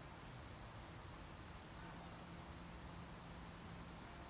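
Cricket singing: a faint, steady, high-pitched trill over quiet background hiss.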